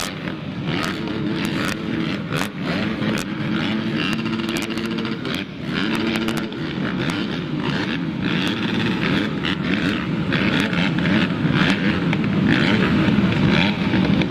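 Motocross bikes' engines running and revving on the track, the pitch stepping up and down with throttle and gear changes, growing louder near the end.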